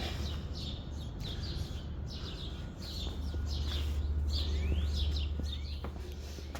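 Small birds chirping over and over in short, quick notes, some sliding up or down in pitch, over a steady low rumble that grows louder for a few seconds midway.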